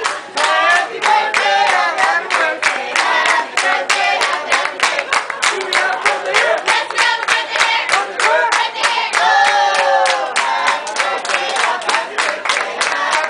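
A group of restaurant servers singing a birthday song together while clapping in a steady rhythm.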